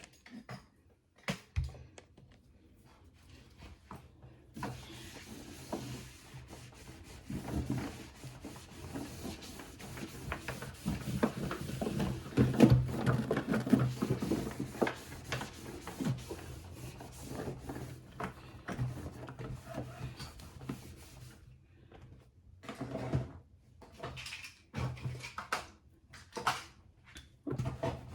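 A cloth rubbing and wiping against the inside of a refrigerator, with small knocks and clatters of shelves and items being handled. The rubbing runs steadily through the middle and gives way to scattered knocks near the end.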